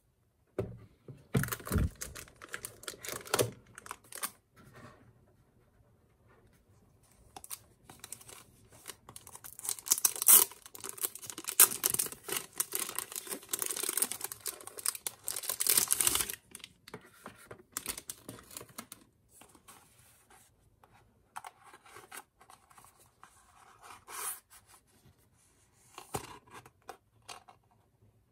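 Handling of cardboard and paper packaging with a few sharp knocks, then a dense stretch of clear plastic wrapping crinkling and tearing as a small packaged item is unwrapped, followed by quieter rustling of paper and card.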